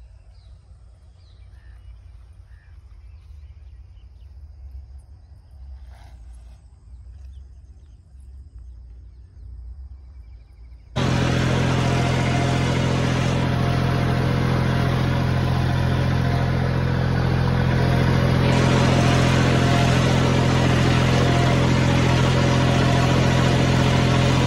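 A faint low rumble, then about eleven seconds in a tractor's diesel engine comes in loud and steady, heard close up from the planter it is pulling through the field.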